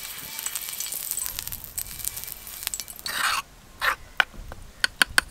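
Oil sizzling and crackling on a hot tawa as it is brushed across the griddle, cutting off about three and a half seconds in. Then a few short clinks and scrapes of a metal spoon in a clay bowl of coriander chutney.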